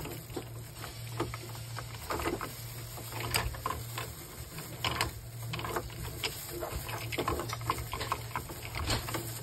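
Irregular plastic clicks and rustling as gloved hands handle and fit the ink-tube dampers and plastic fittings on an Epson L810 printer's print head carriage, over a steady low hum.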